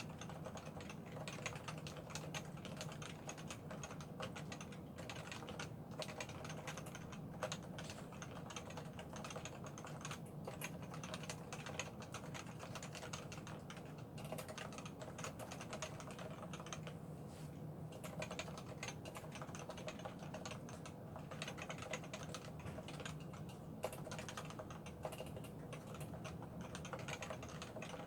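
Topre Realforce 87U keyboard, with 45 g electro-capacitive Topre switches, PBT dye-sub keycaps and Krytox 205-lubed stabilizers, being typed on continuously at a brisk, even pace. Many keystrokes a second run together.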